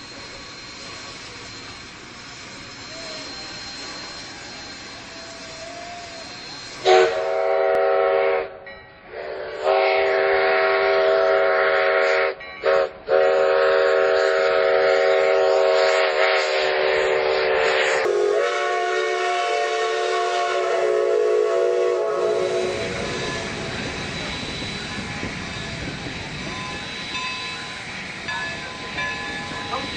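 Steam locomotive sound: a faint steady hiss, then the whistle blows a series of long blasts with short breaks, the loudest sound, fading out after about ten seconds. The steady rumble of the train running follows.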